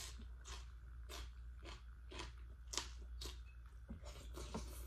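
Close-up chewing of leafy mustard greens, crunching in a steady rhythm of about two chews a second.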